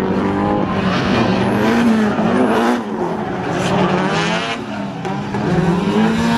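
Drift cars sliding sideways in tandem, their engines revving up and down in pitch as the throttle is worked, with tyres skidding and squealing on the asphalt.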